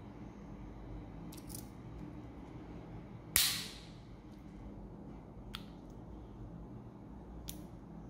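Victorinox SwissChamp Swiss Army knife tools being folded shut: one loud, sharp snap of a tool closing against its spring about three seconds in, with a few fainter clicks of tools being handled before and after.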